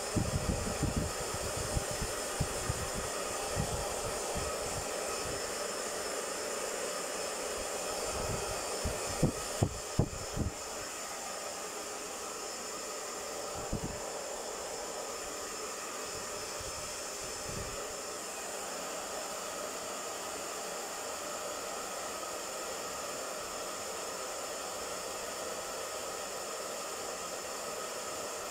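Handheld hair dryer running steadily while drying a puppy's wet fur. Low rumbling and several loud thumps come through in the first ten seconds, then the dryer's steady rush carries on alone.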